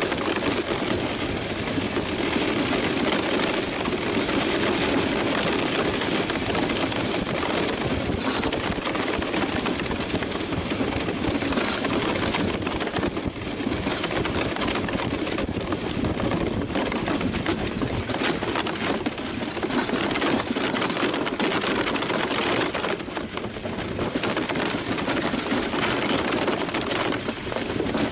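DN iceboat's steel runners running over the ice at about 15–17 km/h: a steady rushing noise with fine crackling, mixed with wind over the microphone.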